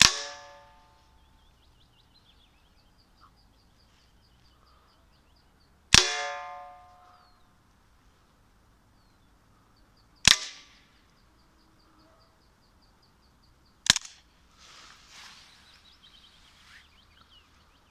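Gamo PT-85 CO2 air pistol firing four shots at a large plastic bottle, each a sharp crack with a short ringing tail, the shots roughly four to six seconds apart. A bird's rapid high chirping runs between the shots, and a rustling follows the last one.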